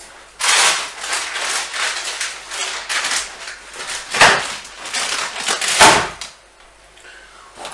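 Paper wrapping rustling and crinkling, with two knocks, about four and six seconds in, as a paper-wrapped bundle of food is set down on a wooden table.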